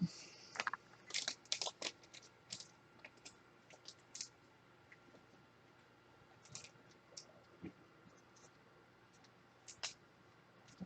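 Faint, irregular scratches and clicks of trading cards and their packaging being handled, thickest in the first two seconds and then scattered.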